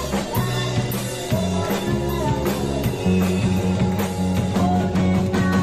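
Live band recording of a woman singing a Japanese kayōkyoku pop song over drums, bass and guitar, with a steady beat.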